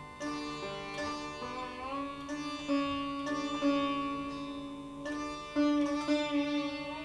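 Sitar played solo without tabla: slow plucked notes, some bent upward in a smooth glide, ringing over a steady drone. This is the unaccompanied opening alap of a Hindustani classical raga.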